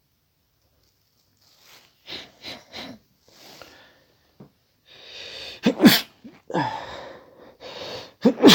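A person's voice in a string of short, breathy, sneeze-like outbursts, starting about two seconds in, the loudest near the middle and at the very end.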